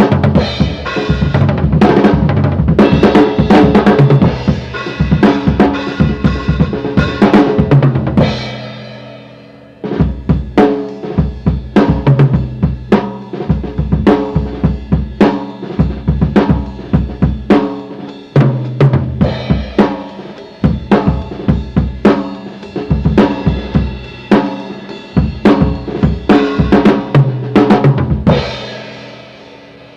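Tama Imperialstar drum kit played in a rock beat with kick, snare and cymbals, heard as recorded in mono on an Optimus CTR-115 handheld cassette recorder fed from close mics through a small mixer. The playing stops about eight seconds in, a cymbal rings out, and the beat starts again about two seconds later. It ends near the end with a ringing decay.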